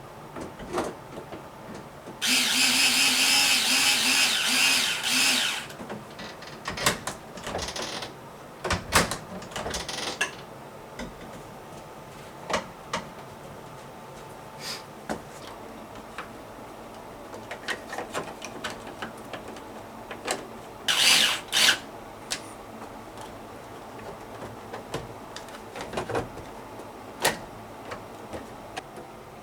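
Electric screwdriver running on screws, one long run of about three and a half seconds and a brief one later, with scattered clicks and knocks of parts and tools being handled.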